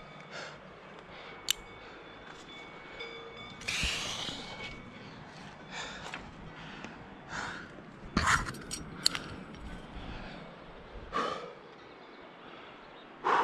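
A rock climber breathing hard with effort, sharp exhales every second or two, and a few sharp clicks of metal climbing gear (carabiners and quickdraws) in between.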